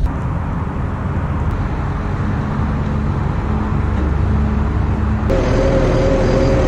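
A truck running: steady low engine and road rumble. About five seconds in the sound changes abruptly and a steady pair of whining tones joins it.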